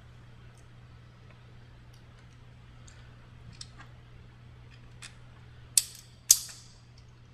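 Light metallic clicks and taps of parts being handled, then two sharp metallic snaps about half a second apart, each with a brief ring, as the spring pulley of a Schwinn indoor bike's drive is fitted onto its shaft and held with a snap ring.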